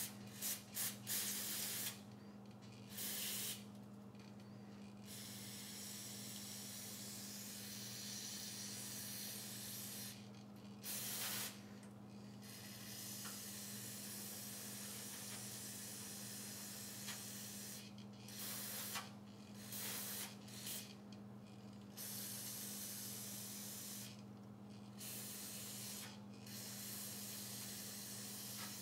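Aerosol spray cleaner hissing through its straw onto a chainsaw carburetor, flushing its parts and passages. A few quick short squirts come first, then longer sprays of several seconds each with brief pauses between them.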